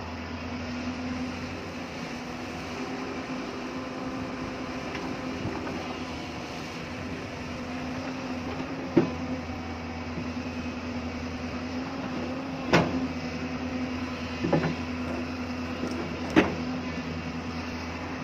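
Hyundai excavator's diesel engine running steadily, with four sharp knocks in the second half.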